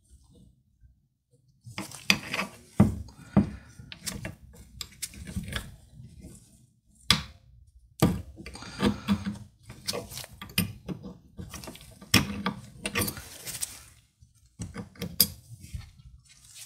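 Steel pin punch working the cocking-lever pins out of an FX Impact M3 air rifle's receiver by hand: irregular small metal clicks, taps and scrapes, starting about two seconds in. Near the end a removed pin is set down on the wooden bench.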